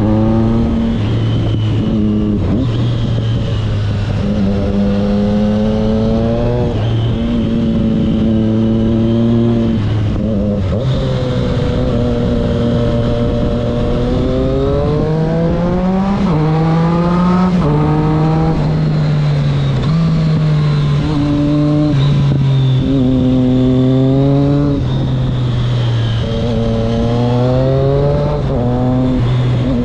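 Triumph Street Triple 660 S three-cylinder engine through an SC Project exhaust, heard from the rider's seat: its pitch climbs and falls back again and again as the bike accelerates, shifts and eases off.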